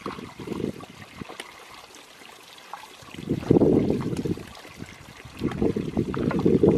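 Wind gusting on the microphone, a rumble that swells and drops, loudest in the second half, with light clicks of hikers' boots and trekking poles on loose slate.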